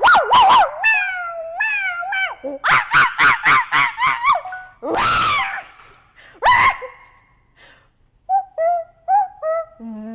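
Dog-like yelping and whining: a string of short calls that bend in pitch, a fast run of about six yips a few seconds in, one longer whine-howl in the middle, and more short yips near the end.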